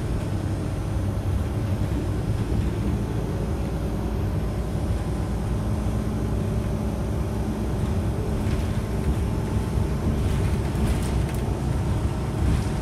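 City transit bus running on the road, heard from inside the passenger cabin: a steady low engine and drivetrain rumble with road noise, and a few light rattles in the last few seconds.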